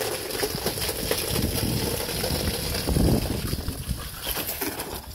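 A stream of water spraying and splashing against vinyl siding, rinsing off applied rust remover. A low rumble swells about three seconds in.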